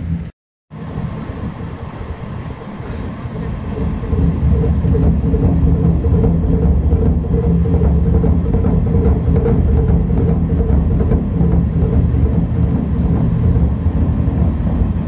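DE10 diesel-hydraulic locomotive's V12 diesel engine running steadily close by, growing louder about four seconds in and holding there.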